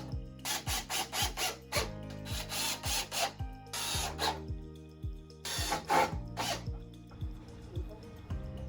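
Power drill driving screws to fasten metal joist hangers to the loft bed frame, in four short runs of bursts over about seven seconds, over background music with a steady beat.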